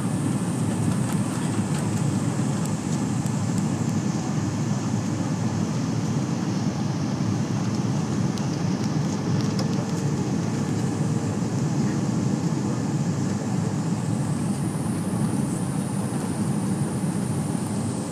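Steady jet airliner cabin noise during descent on approach: a deep, even rush of engine and airflow noise, with a faint high engine whine above it that shifts in pitch a couple of times.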